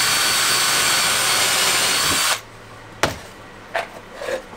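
Makita 18-volt cordless drill driving a screw into an OSB panel, one steady run that stops about two seconds in. After it come a few light clicks and taps as screws are picked from a box.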